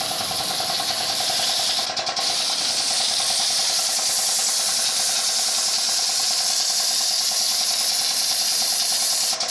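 Compressed-air paint spray gun hissing steadily as it sprays paint, with a steady hum underneath. The hiss breaks off briefly about two seconds in and again near the end as the trigger is let go.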